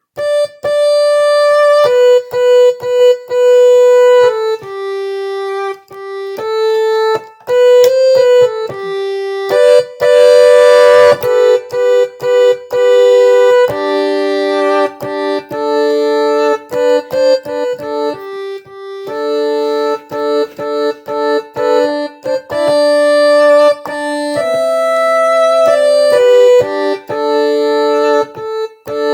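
Electronic keyboard playing a slow melody in held, bright, siren-like tones, mostly one or two notes at a time, imitating a music siren. A short burst of noise comes about ten seconds in.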